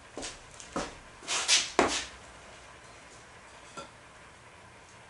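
Wooden boards of a hive-lid skirt frame knocking and scraping against each other and the concrete floor as they are handled: a cluster of knocks in the first two seconds, then one light click near the end.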